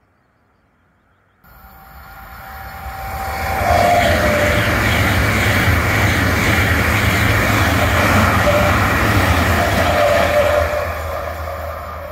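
ICE high-speed train passing through at speed: a loud, steady rumble and rushing hiss that begins abruptly about a second and a half in, swells over the next two seconds and starts to fade near the end. A faint tone bends in pitch twice as it goes by.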